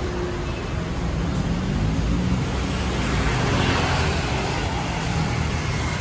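City road traffic with a steady low rumble, and a motor scooter passing close by about halfway through, its noise swelling and then fading.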